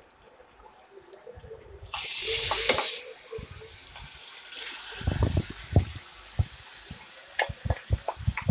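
Marinated chicken poured into hot ghee in a nonstick pan. A loud sizzle bursts out about two seconds in and settles to a steady sizzle, with soft thuds and knocks as the pieces slide in from a glass bowl, several of them near the end.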